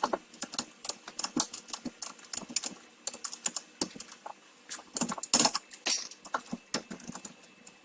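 Ratchet wrench clicking in quick irregular runs while the shock absorber's top rod nut is tightened down on the compressed strut.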